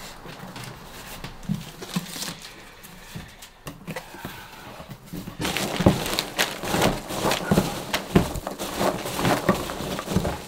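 A cardboard box torn open and hands rummaging through foam packing peanuts. A few light handling knocks come first, then from about halfway a dense crackling rustle.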